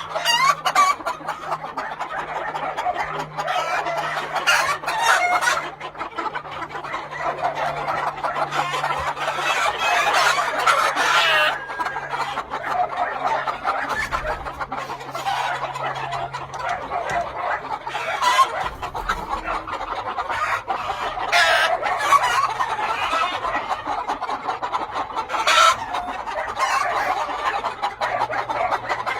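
A flock of gamefowl roosters and hens clucking continuously, with roosters crowing several times through it.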